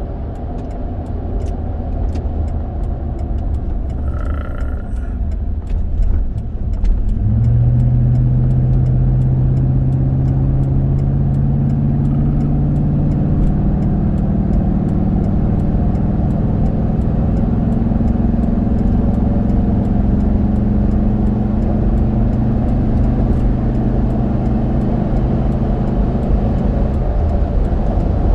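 Road noise inside the cabin of a Toyota Sequoia running on Mickey Thompson Baja Boss A/T all-terrain tires while it picks up to highway speed: a steady low rumble, joined about seven seconds in by a low hum that climbs slowly in pitch and falls away near the end.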